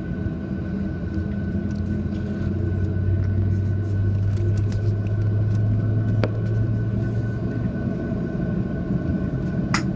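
Airliner cabin noise: a steady low rumble from the engines and cabin ventilation, with a low drone that swells about three seconds in and eases off near eight seconds, and a faint steady whine throughout. Two short clicks, one in the middle and one near the end.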